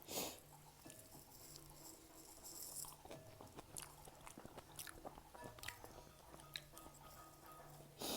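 Faint close-up eating sounds: chewing and small wet mouth clicks, with a louder bite or smack at the start and another near the end.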